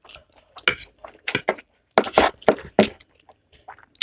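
Close-miked eating of buff keema noodles: irregular short wet chewing and mouth smacks, with a few light clicks of tableware.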